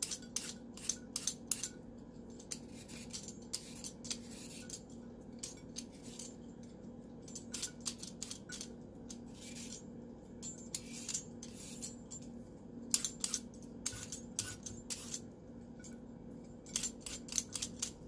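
Vegetable peeler scraping the skin off a raw carrot in many short, irregular strokes, over a faint steady hum.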